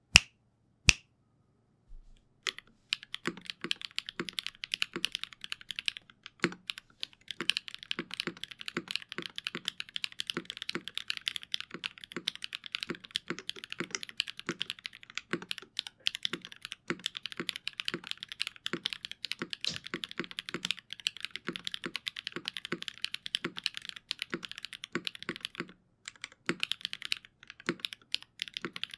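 Typing on a TGR x GAF 910 65% custom mechanical keyboard with stock Sarokeys x Geon BCP switches, an aluminium top-mount plate and GMK Klassiker keycaps. Two sharp clicks come first, then a fast, steady run of keystrokes starts about two and a half seconds in, with a brief pause near the end.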